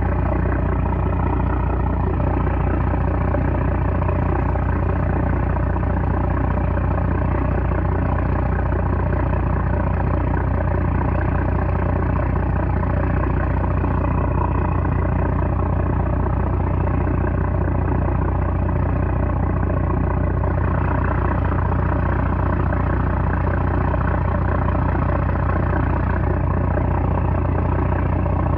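The 330-horsepower engine of a small trawler running steadily, a loud, even drone with a deep low end.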